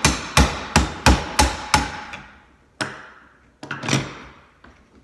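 Hammer driving a screwdriver against the plastic dishwasher knockout plug in a garbage disposal's inlet to knock it out: a quick run of about six sharp metallic blows, roughly three a second, then a few more spaced out, each ringing briefly.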